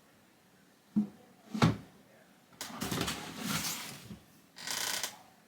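Snow shovel knocking twice against the outside door, then scraping and pushing snow away from it in two strokes.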